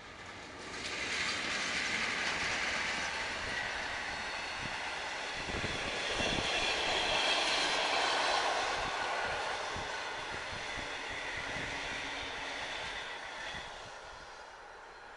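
A passenger train of blue-and-white SBB coaches, hauled by a red electric locomotive, passing at speed. Its wheel and rail noise swells about a second in, is loudest in the middle with a few low knocks from the wheels, and fades as the train draws away near the end.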